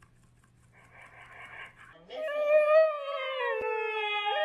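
Dog giving one long drawn-out whining cry, starting about halfway in; its pitch sags slowly, then turns up at the end.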